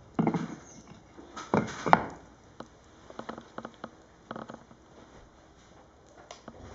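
Firewood burning in an open fireplace, crackling and popping irregularly, with a few louder sharp cracks in the first two seconds and sparser ticks after.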